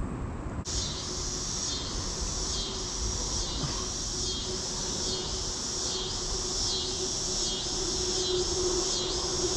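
Cicadas chorusing in a pulsing rhythm, about one and a half swells a second, cutting in abruptly about half a second in. Under them a low steady hum, like a distant engine, grows louder towards the end.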